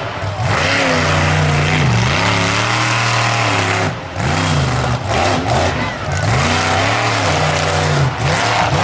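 Monster truck engine revving hard and easing off over and over, its pitch swooping up and down, with brief throttle lifts about four and eight seconds in.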